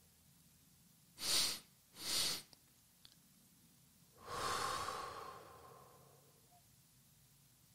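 A person doing a physiological sigh, or double breath: two short, sharp inhales through the nose less than a second apart, then one long exhale through the mouth that fades away over about two seconds.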